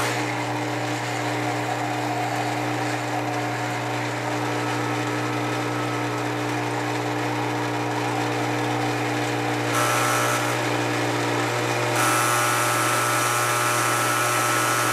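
A 1950s Lionel culvert loader accessory running, its motor giving a steady electric buzz as the crane picks up and carries a culvert pipe. The sound grows brighter and harsher briefly about ten seconds in, then again from about twelve seconds in.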